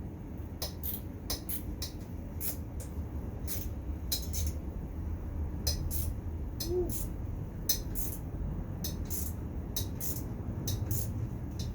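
Hand tools working bolts on an ATV engine: irregular light metallic clicks and clinks, one to three a second, over a steady low hum.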